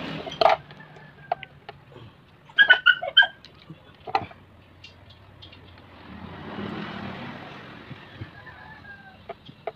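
Sharp clicks and snips of a wire stripper and small tools worked on a motorcycle switch wiring harness, loudest in a quick cluster about three seconds in. A rushing noise swells and fades between about six and eight seconds in.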